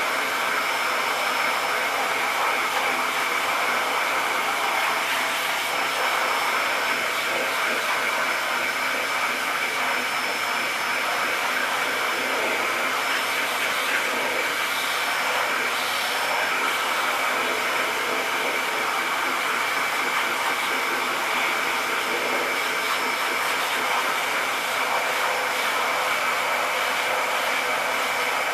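Vacuum cleaner running steadily: a constant rush of air with a steady high whine through it.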